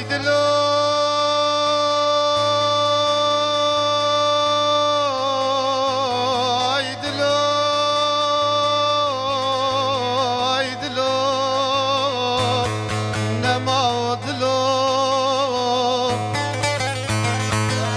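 A man singing an uzun hava, a free-rhythm long song: long held vocal notes that break into wavering, ornamented runs, over a steady low drone. Bağlama (long-necked saz) plucks come in near the end.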